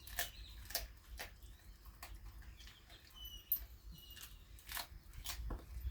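A dog crunching and chewing raw chicken bones: irregular sharp cracks and snaps. A faint bird chirp is heard about halfway through.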